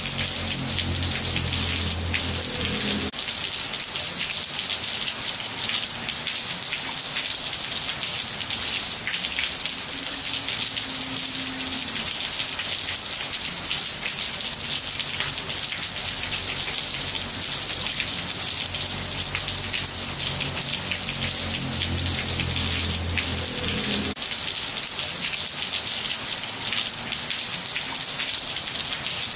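Steady, dense rain falling on roof tiles: a continuous hiss of many small drop impacts.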